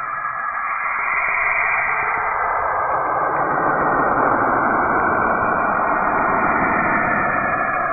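Saturn's radio emissions converted into sound: a rushing, static-like hiss that fills in lower and grows a little louder about two seconds in.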